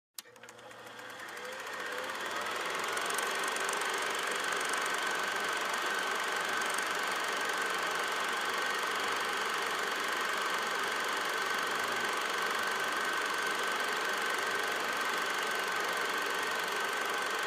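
Film projector running steadily, its mechanism clattering with a thin steady whine, fading in over the first couple of seconds.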